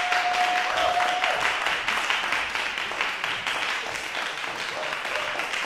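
Audience applauding: many hands clapping in a dense, steady patter that holds at an even level throughout.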